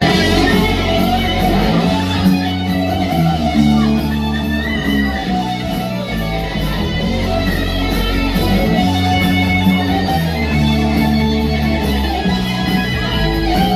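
Live band music: electric guitar strummed over held bass guitar notes that change every couple of seconds.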